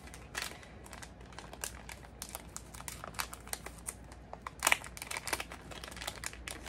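Packaging crinkling and crackling as it is handled, in many small irregular crackles, with one louder crackle about two-thirds of the way in.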